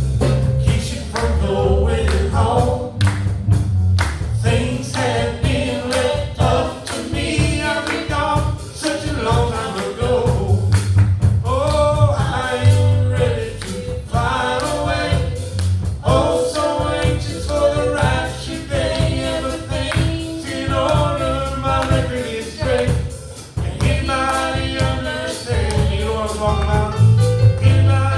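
Gospel singing by several voices over instrumental accompaniment, with steady low bass notes and a regular beat.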